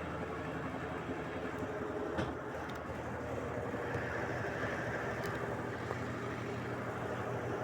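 Brastemp Clean 7 kg (BWC07) washing machine running through its rinse cycle with a steady mechanical hum and low drone, which the owner takes for bearing noise.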